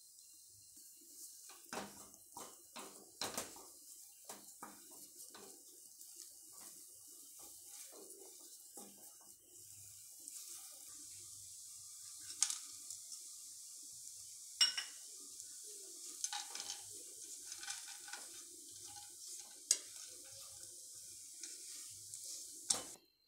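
Wooden spatula scraping, pressing and knocking a thick bread halwa mixture around a non-stick kadai. From about ten seconds in, a faint sizzle of hot ghee runs underneath, with a few sharp clinks as cashews are tipped in from a steel ladle and stirred through.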